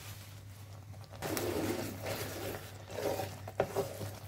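Wooden spatula stirring boiled red kidney beans in thick masala in a metal karahi during the bhuna (frying-down) stage. The stirring grows louder about a second in, with a few light knocks against the pan a little past halfway, over a steady low hum.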